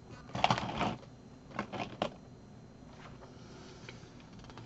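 Paper rustling as photos and magazine pages are handled and shuffled on a desk, in a few short bursts during the first two seconds.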